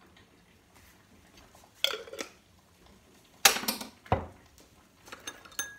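Kitchen things being handled and set down on a stone countertop: a metal teaspoon, a glass jar and dishes make a few separate clinks and knocks, the loudest about three and a half seconds in, then a few small clicks near the end.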